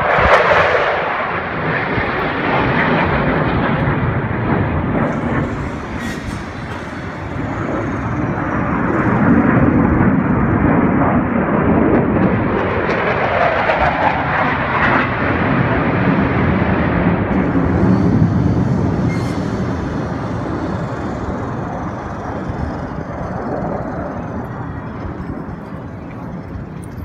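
Jet aircraft flying past: a loud, steady rush of engine noise that swells about a second in and again from about ten to sixteen seconds in, then slowly fades, with a faint falling whine late on.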